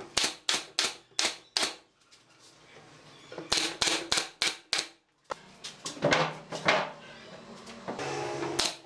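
Pneumatic nail gun firing nails into pine pallet-wood moulding: sharp shots in quick runs of four or five, about three a second, with short pauses between runs.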